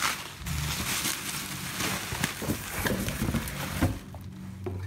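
Plastic bubble wrap crinkling and crackling as a wooden cutting board is pulled out of it, with scattered sharp crackles; it dies down about four seconds in.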